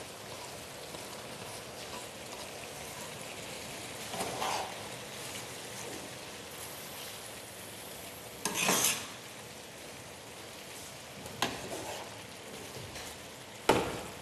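Roe deer liver, heart and sliced onion sizzling steadily in a frying pan, with a metal spatula stirring and scraping the pan a few times; the loudest scrape comes about halfway through.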